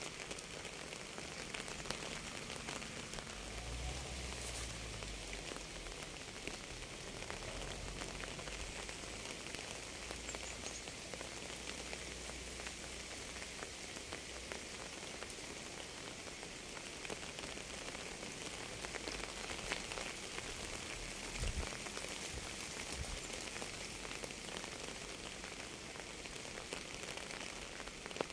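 Steady rain falling on a surface, a dense patter of drops. A low rumble comes and goes through the first half, and there is a brief low thud about twenty seconds in.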